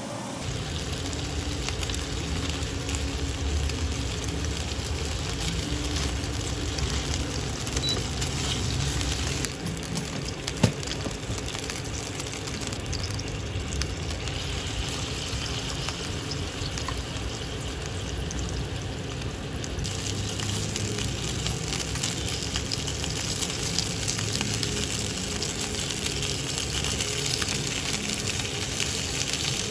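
Dumplings frying in oil in a nonstick pan: a steady sizzle, with a single sharp knock about a third of the way through.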